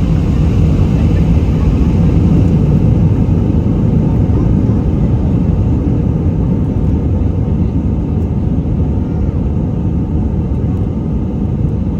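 Steady, loud jet engine and airflow noise inside the cabin of an Airbus A319 at takeoff thrust, easing slightly in level toward the end.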